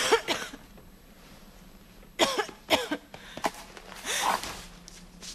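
A woman coughing in short, strained fits: one at the start, two more between two and three seconds in, and a longer breathy cough about four seconds in.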